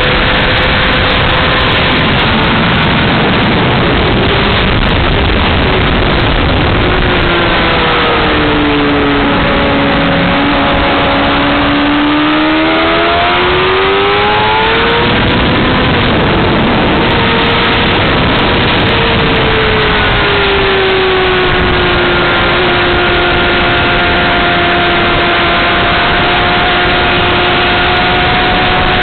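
2007 Honda CBR600RR's inline-four engine running hard on track under a heavy rush of wind noise. The engine note drops as the bike slows, climbs again around twelve seconds in, falls a second time around twenty seconds, then holds a steady drone near the end.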